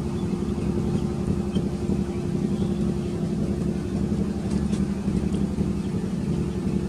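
A steady low drone, like an engine running at constant speed, with a constant hum in it.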